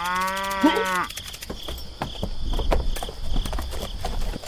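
A cow moos once, a single drawn-out call that ends about a second in. Steady cricket chirps run behind it, and after the call come scattered soft knocks and a low rumble.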